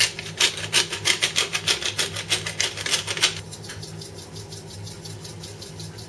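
Hand-twisted pepper mill grinding over sliced potato and onion, a quick run of grating strokes, about five a second, that turn fainter a little past halfway.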